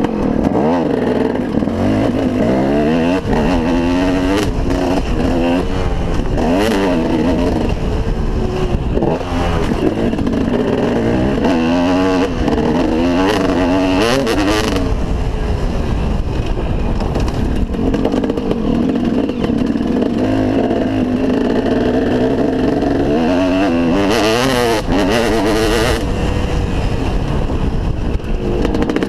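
KTM SX 250 two-stroke single-cylinder motocross engine revving up and down under way, its pitch rising and falling again and again through acceleration and gear changes, heard from the rider's helmet.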